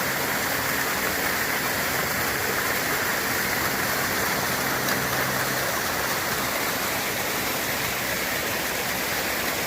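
Creek water rushing over rocks: a steady, even rush of cascading water.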